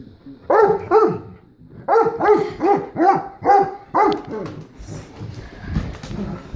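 A large dog barking: two barks, a short pause, then six more in quick succession, each dropping in pitch, aimed at a remote-control toy truck.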